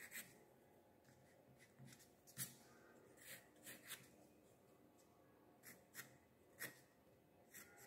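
Pencil sketching on cotton watercolour paper: about ten short, faint strokes, spaced apart, as lines are drawn.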